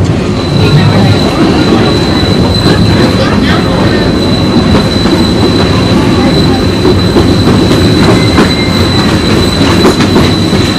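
Disneyland Railroad train rolling along the track, heard from an open passenger car: a steady loud rumble of wheels on rail with scattered clicks at the rail joints. A thin, steady, high-pitched wheel squeal sets in about half a second in and holds.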